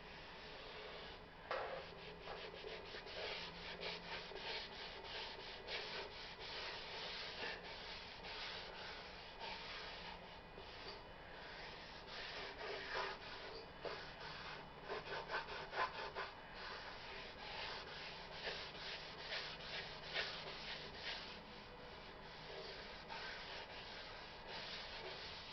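Cloth rubbing oil into the surface of a turned black walnut bowl: quiet, uneven wiping strokes on the wood.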